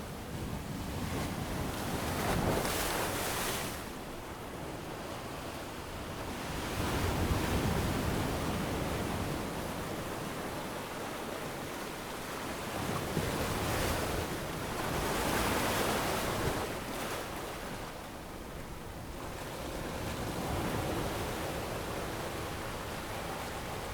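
Ocean waves breaking on a beach, the surf swelling and washing back every few seconds, with some wind on the microphone.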